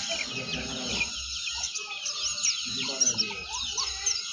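Pleci dakun white-eye singing a fast, continuous twittering song of high chirps and quick sweeps. Lower wavering sounds run underneath in the middle.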